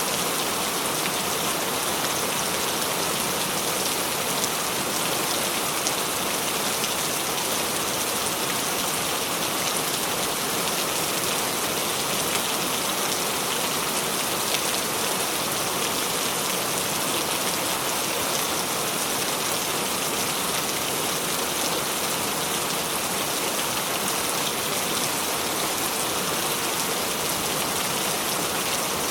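Steady rain falling, an even dense hiss of many drops that keeps on without let-up.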